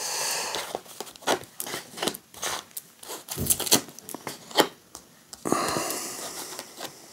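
Fortune-telling cards being drawn from decks and laid on a table: irregular soft taps and clicks, with a longer sliding rustle at the start and another a little past the middle.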